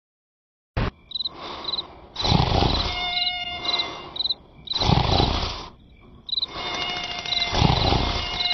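Cartoon night-time sound effects: crickets chirping in quick repeated pairs, while a loud snore swells and fades about every two and a half seconds from the sleeping larva. It begins suddenly after a second of silence.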